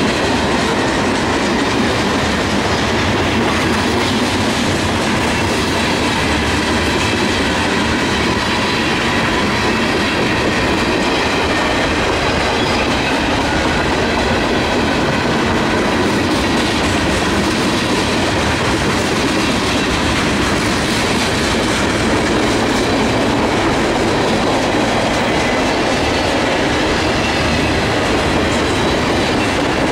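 Freight cars of a manifest train (tank cars, boxcars and covered hoppers) rolling past close by: a steady, loud rumble and clatter of steel wheels on rail, with faint high ringing tones running through it.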